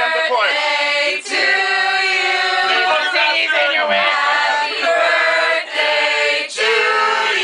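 A small group of men and women singing together without instruments, holding long notes in phrases with short breaks between them.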